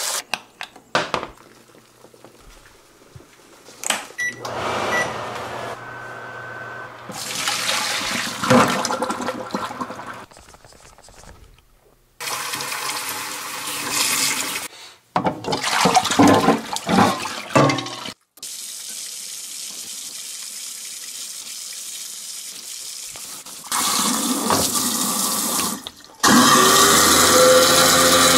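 Water from a kitchen tap running into a saucepan holding eggs and into a stainless steel sink. It comes in several separate stretches with abrupt breaks between them and a few short knocks, and is loudest near the end.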